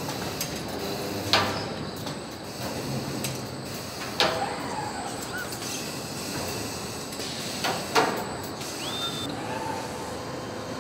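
Machinery noise on a van body assembly line with industrial robots: a steady hum broken by sharp metallic clanks about a second in, about four seconds in, and twice close together about eight seconds in.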